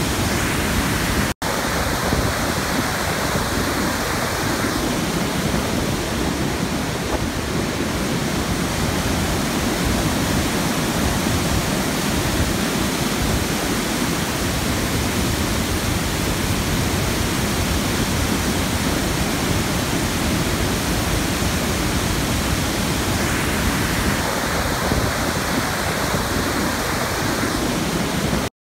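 Steady roar of floodwater rushing over a dam spillway and down a swollen river. The sound breaks off for an instant about a second in and stops suddenly near the end.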